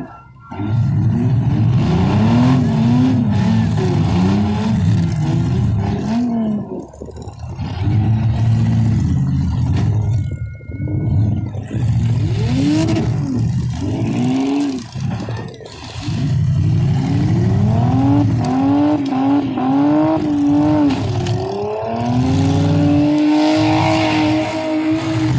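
Compact car engines in a demolition derby, revving hard up and down over and over as the cars push and ram one another in the mud, with brief lulls between bursts.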